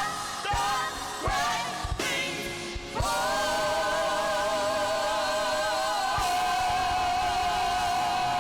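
Gospel praise song sung live with a band: a few sung phrases over drum hits, then from about three seconds in one long held note with a wavering vibrato.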